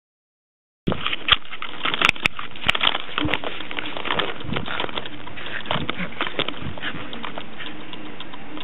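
Golden retriever puppy tugging and mouthing a lead, close to the microphone: a steady noisy rush scattered with sharp clicks. It starts suddenly about a second in, after silence.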